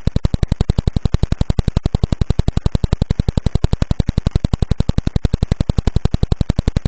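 Radio signal of the Vela pulsar (PSR B0835−45) turned into sound: a fast, perfectly even train of clicks, about eleven a second, each click one turn of the spinning neutron star's beam sweeping past Earth.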